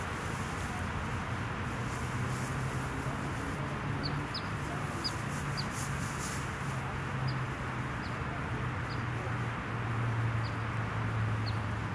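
Short, high bird chirps, about one a second, scattered over a steady rushing background and a low hum.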